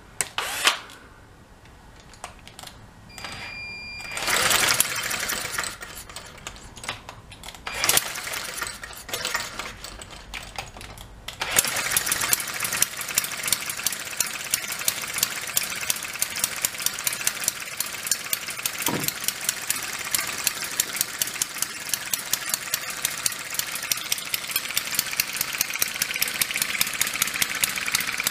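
Small homemade inline-twin four-stroke model engine with its valves below the cylinders, spun over with a cordless drill and catching about eleven seconds in. It then runs steadily with a rapid, even firing beat.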